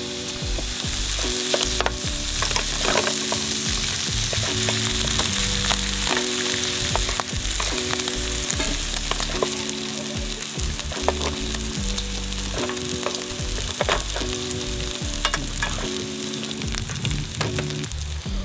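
Sliced meat sizzling as it fries in a ridged grill pan on a portable gas stove, with scattered light clicks of metal chopsticks against the pan as the pieces are turned and lifted out.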